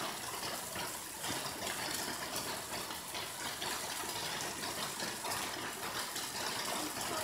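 Steady rushing of running water from a mountain stream, with a few faint clicks.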